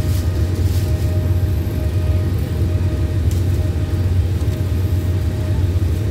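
Diesel train running steadily with a low rumble, heard from inside the carriage. A faint tone sounds over the rumble.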